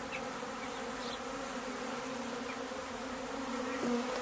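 Honeybees buzzing around an opened top-bar hive: a steady drone of many bees.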